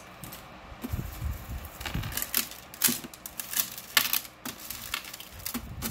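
Plastic bead necklaces clicking and clattering against each other and the tray as they are handled, in a run of irregular clicks.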